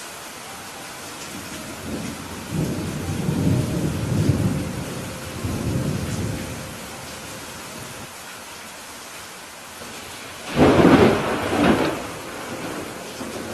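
Steady rain with thunder: a long low rolling rumble from a few seconds in, then a sharper, louder thunderclap near the end.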